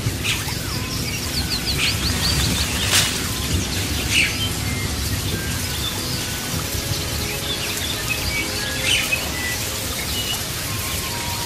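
Rainforest ambience: birds chirping and calling at intervals over a steady hiss, with a quick trill about a second in. A few brief sharp sounds stand out, the loudest about three seconds in.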